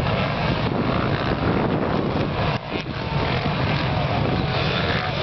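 A field of motocross motorcycles racing around the track just after the start, their engines blending into a steady loud buzz with a brief dip about two and a half seconds in.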